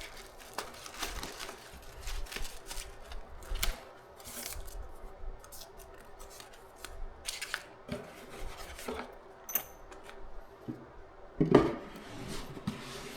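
Packaging being handled and opened: a run of short clicks, scrapes and rustles, with one louder knock near the end.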